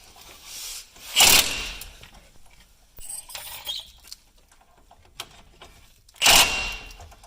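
Two short metallic clanks of hand tools on the truck's steel parts, about five seconds apart, the second ringing briefly, with faint tool ticks between them.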